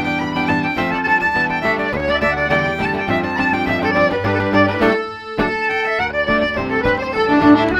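Irish traditional dance tune played live on fiddle, button accordion and acoustic guitar, with the fiddle out front. The music thins out for a moment about five seconds in, then carries straight on.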